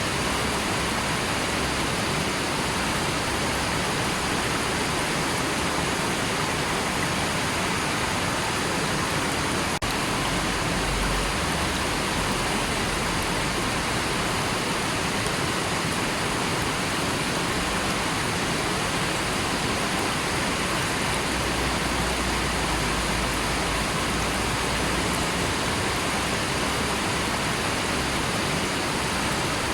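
River water rushing steadily, a continuous even noise of flowing water.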